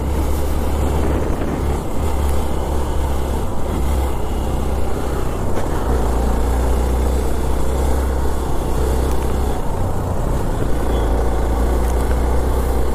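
Motorcycle being ridden along a road: a steady engine drone under an even rushing noise, easing briefly twice.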